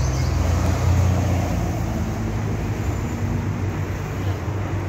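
Low, steady rumble of road traffic, loudest about a second in.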